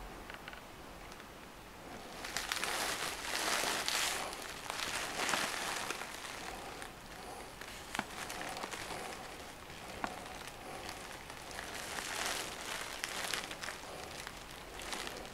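Handling noise: rustling and scraping of hands moving a plastic laptop case, with a few sharp clicks. It swells twice, from about two seconds in and again near the end.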